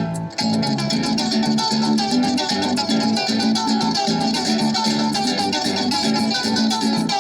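Harp being played: a quick plucked melody over a steady, repeating bass pattern, with a brief dip in level just after the start.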